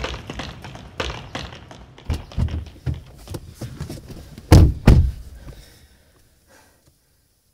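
Running footsteps on paving, about three strides a second, then two car doors slamming shut in quick succession about four and a half seconds in, after which it goes quiet.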